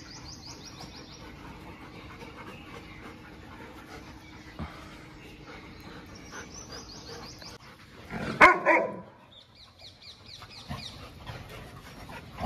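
A dog gives one short, loud bark about eight and a half seconds in, with a smaller dog sound a couple of seconds later, among a pack of dogs at play. Birds chirp faintly in the background.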